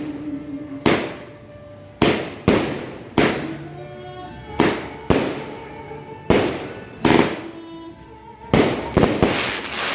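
A Diamond Fireworks 'Capitol Hill Sunset' 16-shot cake firing its shots one after another: about a dozen sharp reports, irregularly spaced from half a second to a second and a half apart, each trailing off in an echo.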